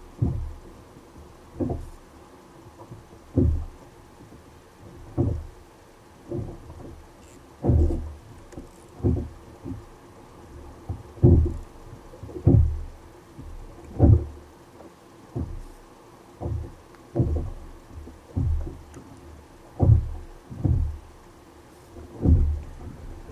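Water knocking against a kayak hull as a string of dull, low thumps, irregular and roughly one a second.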